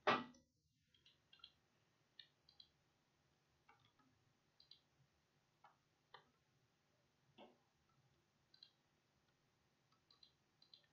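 Faint computer mouse clicks, about fifteen scattered through the stretch and several in quick pairs, over near silence, after a brief louder sound right at the start.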